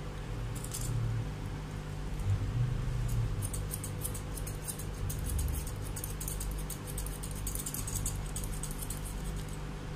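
Curved grooming scissors snipping through a Pomeranian's facial fur: a quick run of small crisp cuts, a few near the start and then many close together from about three seconds in, while the face is roughed into a round shape.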